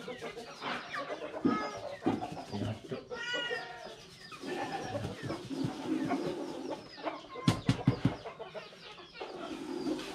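Chickens clucking, with short calls repeating, and a quick run of sharp knocks about three-quarters of the way through.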